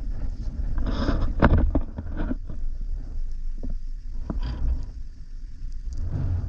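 Wind rumbling on the camera's microphone, with a few louder gusts about a second in, around the middle and near the end.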